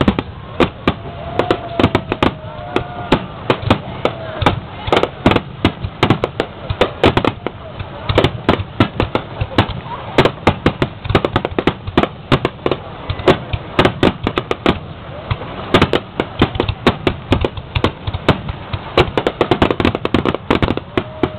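Aerial fireworks shells bursting in quick succession: a dense, unbroken run of sharp bangs and cracks, several a second.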